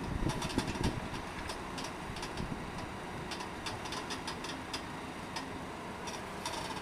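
Excavator engine running steadily, with repeated metallic clicks and rattles and a few heavy low thuds in the first second.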